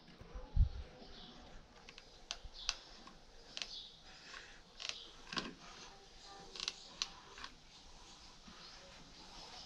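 Irregular faint clicks and taps from a hot glue gun's trigger being worked and the gun handled while carpet is pressed down, with a soft bump about half a second in.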